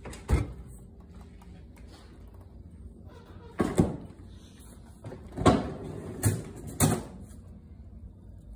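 Refrigerator door swung shut with a knock, then a run of clunks and rattles as the bottom freezer drawer and its basket are pulled open: one knock near the start, two close together about four seconds in, and three more between five and seven seconds.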